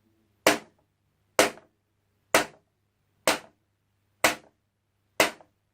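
A sheet of paper struck sharply six times in a steady beat, about once a second. Each snap is short and dies away at once with no ringing.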